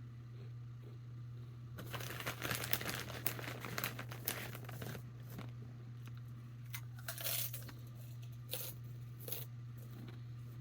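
Chip bag crinkling and rustling as it is handled, a dense stretch of about three seconds starting about two seconds in, then a few short crinkles. A steady low hum runs underneath.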